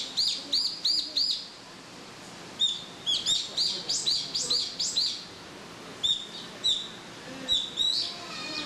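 Small birds chirping: short, high chirps in quick runs of three to six, with pauses of about a second between runs.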